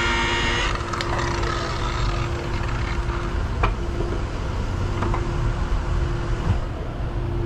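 Handheld rotary polishing machine running with a high whine, switched off about a second in. A steady hum and low rumble carry on after it, with a few faint knocks.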